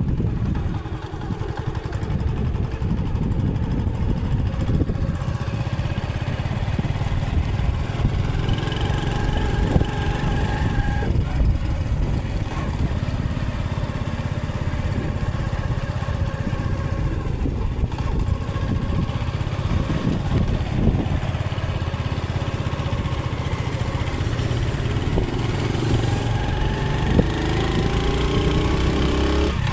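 Honda CD 70 motorcycle's small single-cylinder four-stroke engine running as the bike is ridden, its note shifting in pitch a few times.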